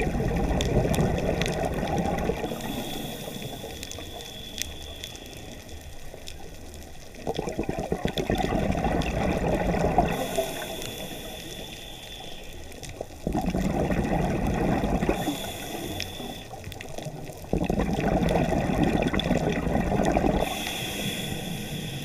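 Scuba diver breathing through a regulator underwater. Four gurgling bursts of exhaled bubbles, each two to three seconds long, alternate with quieter hissing inhalations that carry a faint whistle, about one full breath every seven seconds.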